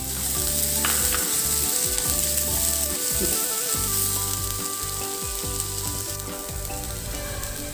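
Grated carrot, onion and green chillies sizzling as they fry in oil in a nonstick pan, with a wooden spatula stirring and scraping them around the pan.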